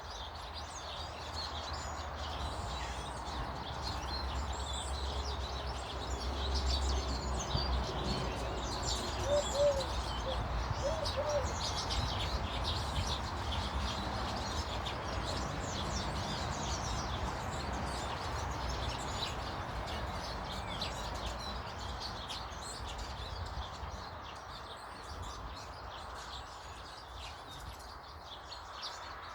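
Garden birds chirping and twittering throughout, with a few short, low cooing notes about ten seconds in, over a steady background hiss.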